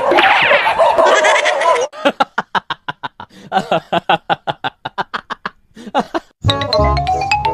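A loud, noisy jumble for about two seconds. Then a rapid, evenly paced string of 'ha-ha' laugh pulses, about six a second, runs for roughly four seconds. Music with a rising sliding tone starts near the end.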